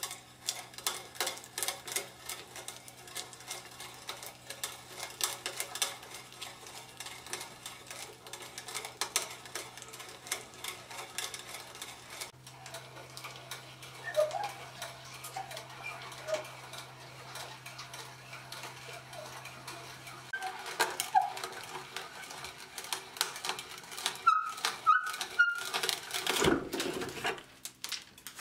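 Hand brace turning an auger bit to bore a hole into a softwood workbench top: a fast, continuous ticking and crunching as the bit cuts into the wood, with a few faint squeaks after the middle and a louder knock near the end.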